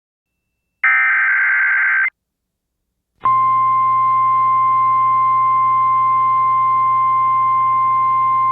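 Emergency Alert System broadcast: one burst of the screeching SAME digital header, about a second long, encoding a dust storm warning, then from about three seconds in a steady single-pitch alert tone, the NOAA Weather Radio 1050 Hz warning alarm tone.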